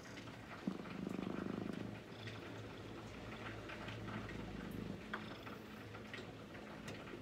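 Orange-and-white cat purring close to the microphone, a low, fast-pulsing rumble that is loudest for about a second near the start and then carries on steadier and a little softer.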